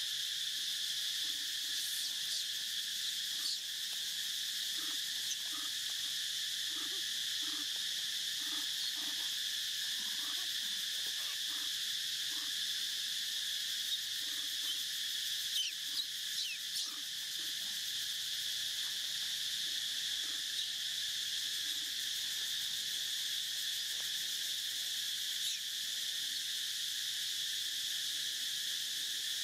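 Steady, high-pitched insect chorus droning without a break. Over it come faint short low calls, repeating through the first dozen seconds, and a few sharp chirps about halfway through.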